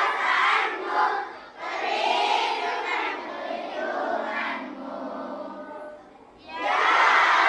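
A large group of children's voices chanting together in unison, in phrases, with a brief break about a second and a half in and a pause near the end before the chanting comes back loudly.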